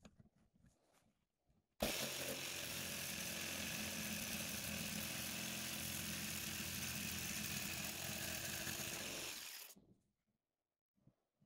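Jigsaw sawing through a thin, rusty steel plate: it starts abruptly about two seconds in, runs steadily for about eight seconds and winds down as the offcut comes free. Faint handling ticks come before and after it.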